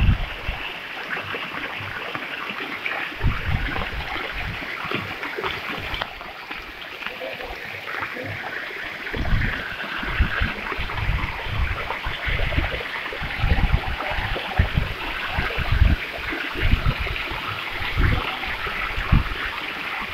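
Floodwater rushing and churning steadily, with irregular low thumps on top.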